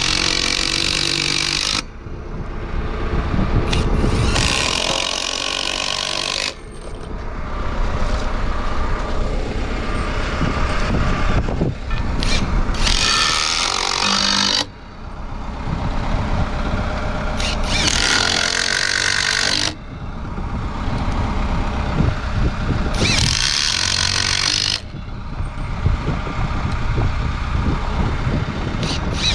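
Cordless impact driver hammering screws through a steel post-base bracket into a wooden post. It runs in five bursts of about two seconds each, each starting and stopping abruptly.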